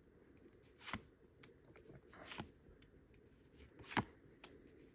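Pokémon trading cards being flipped through by hand: a few soft slides and flicks of card stock, the sharpest about four seconds in, with quiet between.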